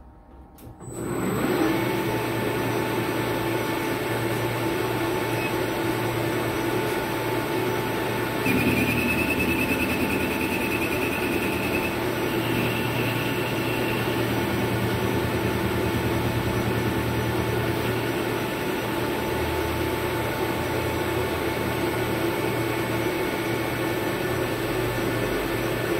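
Hafco AL-356V metal lathe starting up about a second in, its spindle and gearing then running steadily. From about eight seconds in, a faint high wavering squeal joins for several seconds as the tool takes a light cut off the bottom of a bored hole.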